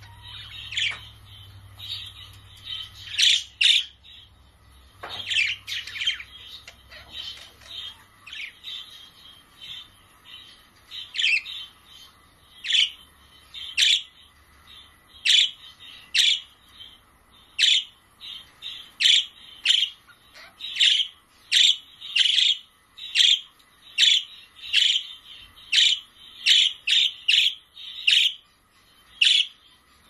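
Budgerigars chirping: many short chirps, scattered at first, then coming fairly evenly at about one or two a second.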